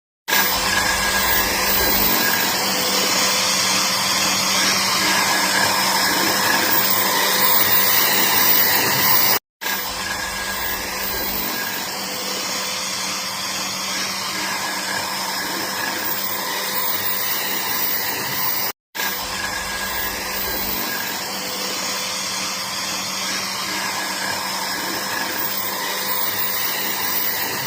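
An electric power tool working wood, its motor running steadily with an even hissing noise. The sound breaks off briefly twice, about a third and two-thirds of the way through, and starts again.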